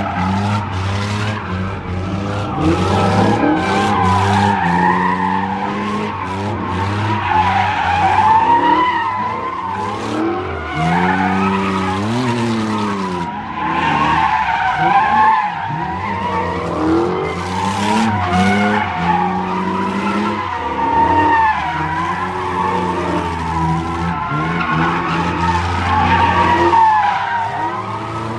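Cars spinning donuts: tires squeal without a break while the engines rev up and drop back again and again.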